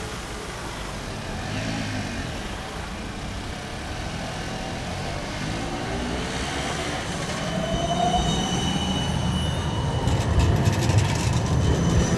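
Siemens Combino city tram approaching through a curve and passing close, its rising motor whine giving way to high, steady wheel squeal on the curved rails from about halfway in. It gets louder toward the end, with a run of sharp clicks as it goes by, over steady traffic rumble.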